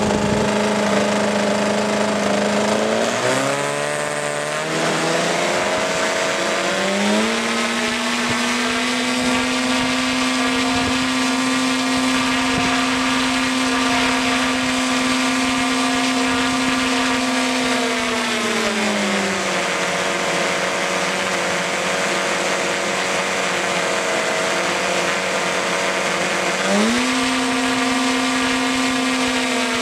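Twin-cylinder gasoline model aircraft engine with a belt reduction drive, turning a four-blade scale propeller on a test stand during a runup. It drops back about three seconds in, then runs up to full throttle about seven seconds in, around 3300 propeller rpm, and holds there for about ten seconds. It falls back to a low idle, then runs up again briefly near the end.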